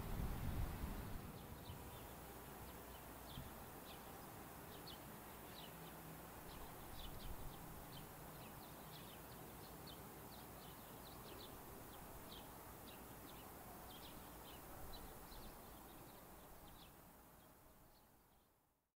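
Small birds chirping, many short repeated chirps over faint steady outdoor background noise. A low rumble stops about a second in, and everything fades out near the end.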